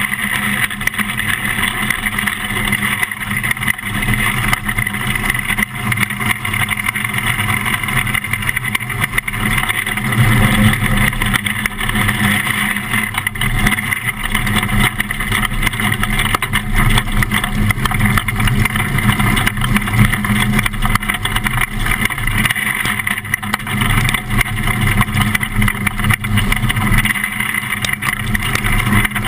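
Winged micro sprint car's engine running steadily at low speed, heard from the cockpit; it gets briefly louder about ten seconds in.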